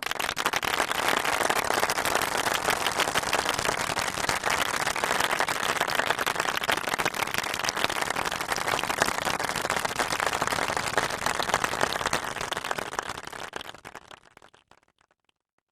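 Large crowd applauding, a dense, steady crackle of many hands clapping that starts abruptly and dies away over the last few seconds.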